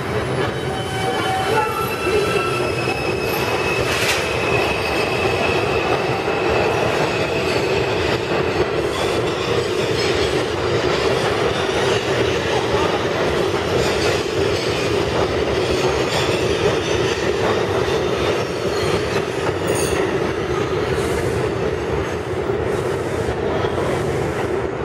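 New York City Subway 5 train pulling out of the station and running away down the tunnel, its wheels running on the rails with a steady rumble. A high whine sounds over the first several seconds.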